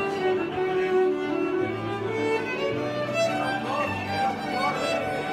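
Electric violin playing a bowed melody of long held notes, over low bass notes that change about once a second.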